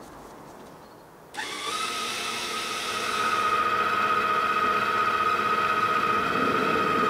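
Kenwood Chef A701 stand mixer's motor switched on about a second and a half in, spinning up and running at full speed with a steady whine, getting louder a couple of seconds later.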